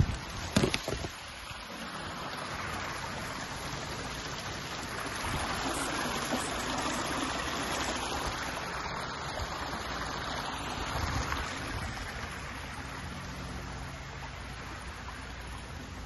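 Small stream of water running over rocks. It grows to its loudest in the middle and then fades. A few sharp knocks come about half a second in.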